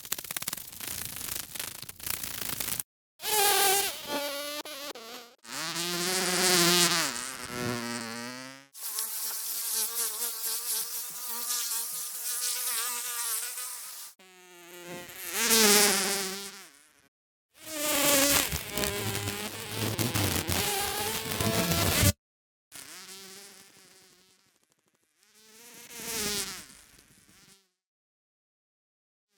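Flies and bees buzzing in flight as a string of separate sound-effect takes broken by short gaps. The buzz swells and rises and falls in pitch as the insect passes close to the microphone.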